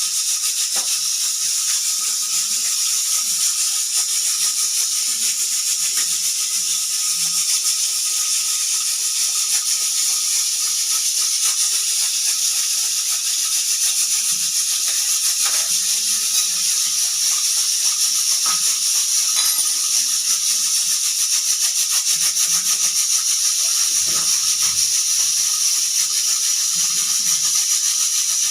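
Pressure cooker whistle blowing continuously: steam escaping past the weight in a steady, high hiss that flutters rapidly, with a faint steady tone beneath.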